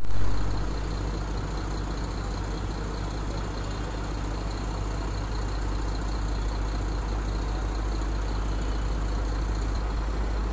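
Heavy diesel engine running steadily with a deep, even drone, with a brief loud swell in the first half second.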